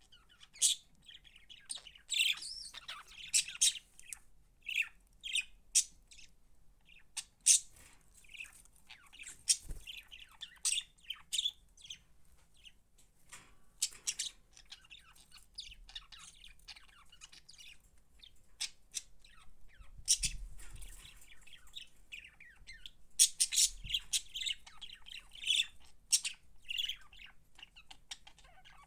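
Pet budgies (budgerigars) chirping and squawking, with many short sharp calls coming in irregular bursts, denser near the start and again in the last third.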